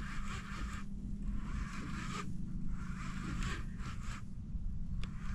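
Fishing reel whirring in several stretches of about a second each, with short breaks between, while a hooked fish is fought on a jigging rod.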